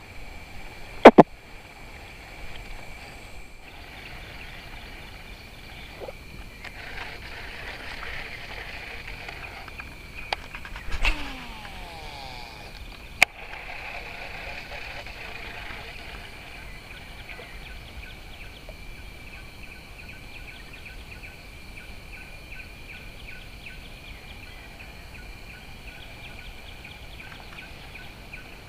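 Baitcasting reel at work while frog fishing: a few sharp clicks, and about 11 seconds in a whir that falls in pitch as the spool spins out on a cast. Under it runs a steady, high-pitched drone of insects.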